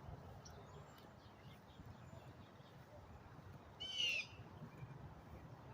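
A bird calling once, a short call about four seconds in, with a few fainter high chirps earlier over quiet outdoor background.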